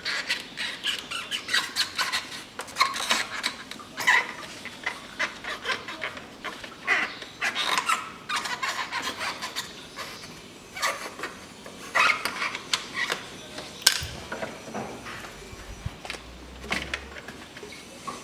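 Hand work among the engine-bay hoses and fittings: rubber and plastic parts squeak, click and rattle as they are twisted and pulled loose. The sounds come as a string of short, irregular squeaks and knocks.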